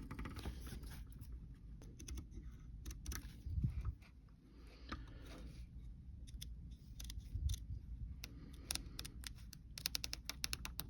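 Small multitool scissors cutting, an irregular string of short snips and clicks.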